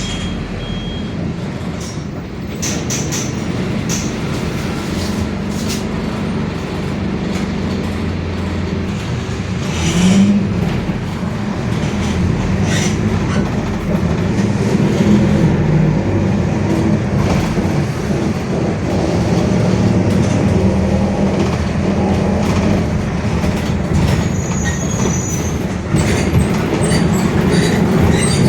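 Mercedes-Benz OF-1721 diesel city bus heard from inside while driving: engine and drivetrain running steadily with body rattles, getting a little louder about ten seconds in. The differential growls, a sign of a noisy, worn differential.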